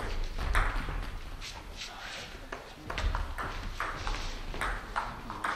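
Table tennis rally: the celluloid-type ball clicking sharply on the table and off the rubber-faced paddles, a quick, uneven series of pings, a few every second.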